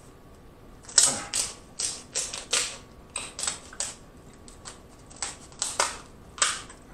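Kitchen shears cutting along the shell of a cooked king crab leg: a quick, irregular string of sharp cracks and snips, starting about a second in.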